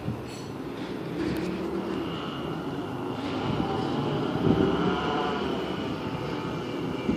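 Small two-stroke engine of a gas Go-Ped stand-up scooter buzzing at a distance, its pitch wavering up and down in the middle as the rider works the throttle.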